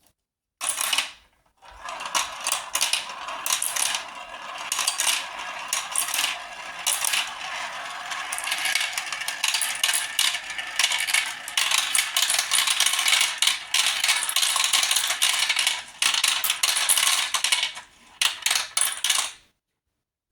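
Many marbles rolling and clattering down a marble run track, a dense stream of small hard clicks. It starts under a second in, thins briefly near the end, then stops suddenly.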